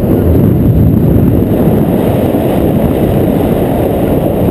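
Loud, steady rush of wind buffeting the microphone of a camera on a paraglider in flight.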